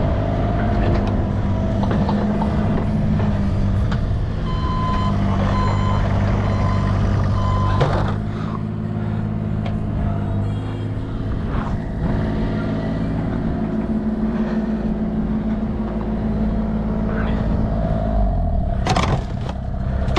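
A large engine, such as a truck's or heavy machinery's, runs steadily. A reversing alarm beeps about four times starting about five seconds in. The engine eases off about eight seconds in, and a couple of sharp knocks come near the end.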